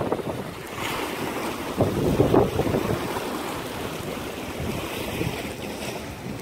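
Storm-force squall wind gusting and buffeting the microphone, rising into a louder gust about two seconds in.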